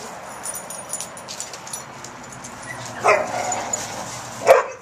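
A dog gives two short barks, one about three seconds in and a louder one near the end.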